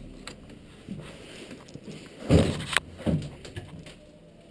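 A steel door being handled and passed through: scattered knocks and clunks, with the loudest, a scraping clunk of about half a second, some two and a half seconds in and a smaller thud soon after.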